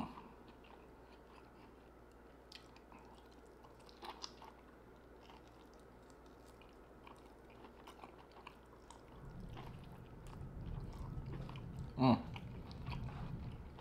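Close-miked chewing and biting of butter-dipped lobster tail meat, with faint wet mouth clicks. A low hum sets in about nine seconds in, and there is a short voiced sound about twelve seconds in.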